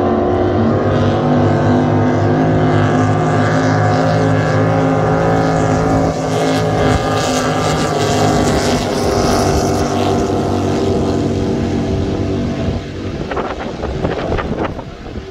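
Several racing powerboats running flat out past the shore: a loud, steady engine drone whose pitch shifts slightly as they pass. It falls away about thirteen seconds in, leaving gusts of wind on the microphone.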